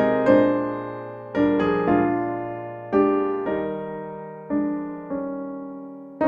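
Piano playing a slow hymn tune: a chord is struck every half second to a second and each is left to ring and fade.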